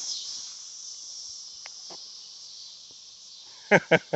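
Insects chirring in a steady high-pitched drone, with a quick run of four or five loud knocks or clicks about three and a half seconds in.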